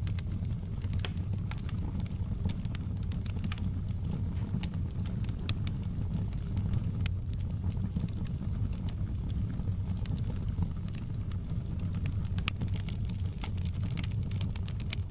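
Logs burning in a fireplace: irregular sharp crackles and pops, scattered unevenly, over a steady low rumble of the fire.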